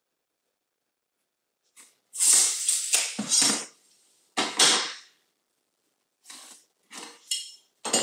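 Handling noise as trim and a metal speed square are moved and set against each other: a few short bursts of scraping and knocking, the loudest a couple of seconds in.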